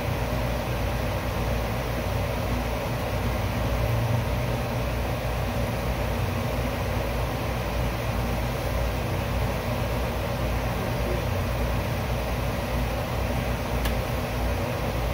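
Steady background hum and hiss, unchanging throughout, with a faint click near the end.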